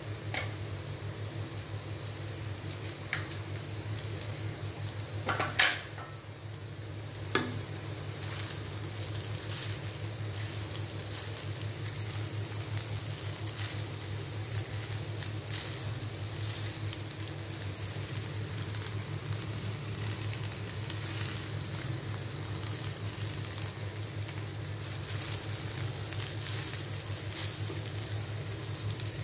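Buttered rice frying in a pan, sizzling steadily as a silicone spatula stirs and tosses it, with two sharp knocks of the spatula against the pan about a quarter of the way in.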